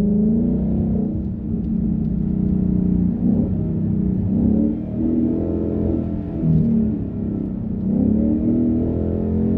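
2019 Mustang GT's 5.0 L V8 through its cat-back exhaust, heard from inside the cabin, pulling hard and easing off in turn as the car is driven quickly through a run of bends, its pitch rising and falling several times.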